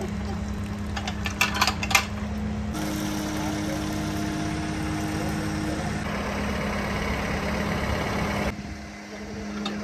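Telehandler engine running steadily at idle, with a few sharp metallic clicks and clinks about one to two seconds in.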